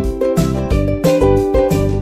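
Instrumental background music with quick, evenly spaced notes over a bass line.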